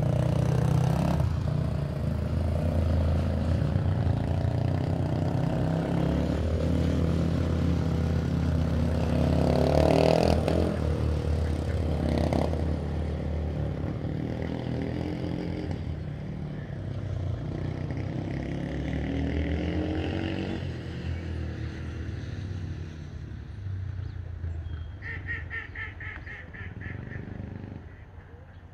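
Small ATV (quad bike) engine running as it rides along, its pitch rising and falling with the throttle; loudest in the first half, then slowly fading away. Near the end, a short rapid series of high chirps.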